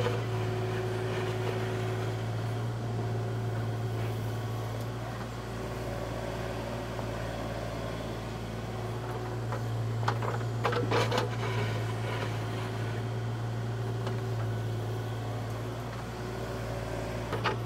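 Excavator's diesel engine running steadily at the dig, a constant low hum, with a few short knocks about ten seconds in.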